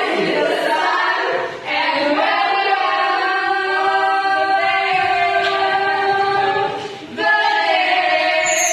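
A choir singing a cappella in long held phrases, with short breaks near two seconds and again near seven seconds in.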